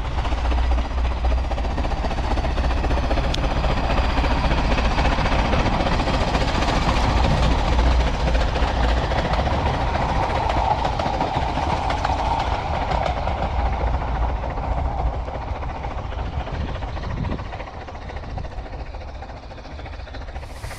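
Ffestiniog Railway narrow-gauge steam train passing: the locomotive working and the coach wheels running on the rails. It grows louder as the train comes by, peaks about halfway through, and fades as it draws away near the end.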